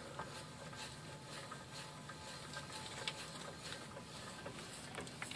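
Faint sandpaper-like grinding from a 2001 Toyota Prius wheel-hub bearing as the hub and brake rotor are spun by hand with the axle out: the bearing is worn. A few light knocks sound near the end.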